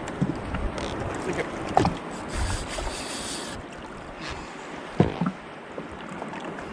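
Water slapping and lapping against a jet ski's hull, with a couple of sharp knocks and a short hiss of splashing in the middle.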